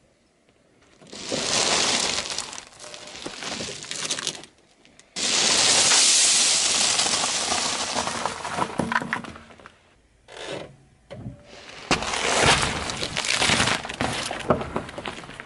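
A car tyre rolling over and crushing things in turn: a ball packed with candy-coated chocolates crackling as the shells crack and scatter, then watermelon and pineapple splitting. Several separate stretches of crunching and crackling, with short quiet breaks between them.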